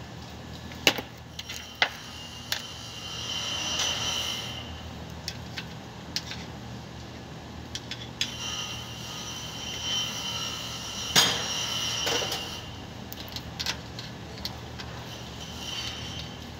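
Sharp metal clinks and knocks of a tool on a bus's rear wheel hub nuts and brake drum, the loudest about eleven seconds in. Between them are two stretches of high hissing whine, over a steady low shop hum.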